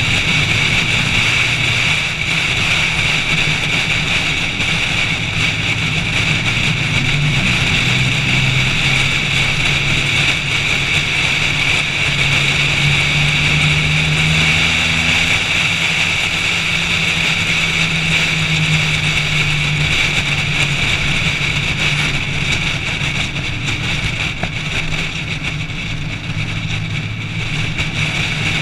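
A car's engine running at speed on a race track, its pitch rising and falling a little through the corners. Heavy, steady wind and road noise sits over it, and the engine drops back briefly near the end.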